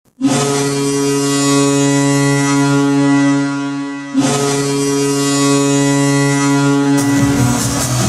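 Recorded arena goal horn, a deep ship-style air horn, sounding two long blasts: the first about four seconds, the second about three. Goal music comes in as the second blast ends.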